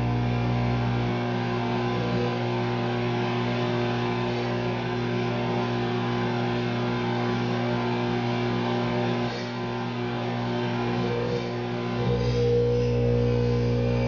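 Microwave oven running with a steady electrical buzz while a grape sparks a plasma inside a glass; the buzz changes tone about twelve seconds in.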